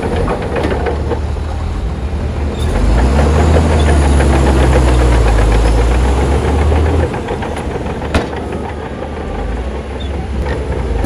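Bulldozer's diesel engine running, with its low drone growing louder and heavier for about four seconds from near the third second, then easing back. A single sharp click comes about eight seconds in.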